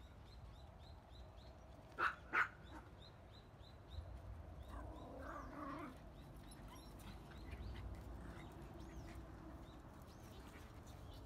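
A dog barks twice in quick succession, short and sharp, about two seconds in, over a low outdoor rumble.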